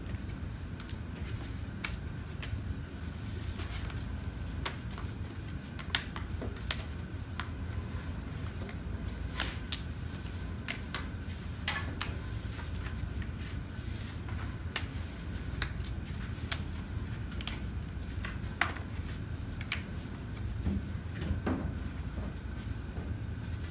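Die-cut cardboard box blanks being handled and folded on a tabletop: scattered light clicks and taps of board against the table at irregular intervals, over a steady low hum.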